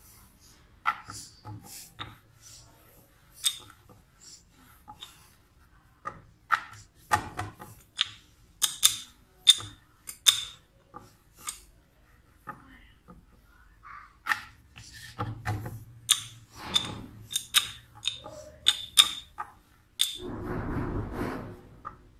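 Wooden rolling pin knocking and clacking against a round wooden rolling board in irregular strokes as puff pastry dough is rolled out. Near the end there is a short rubbing, rustling noise as the rolled sheet of dough is lifted off the board.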